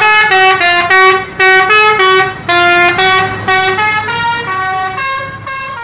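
A tour bus's multi-note musical air horn (a "telolet" horn) plays a quick tune of short stepped notes. It fades near the end.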